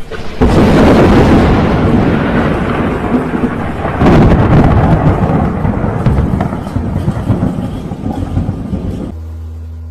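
Thunder: a loud clap about half a second in, a second crack about four seconds in, and a long rumble that slowly fades between and after them.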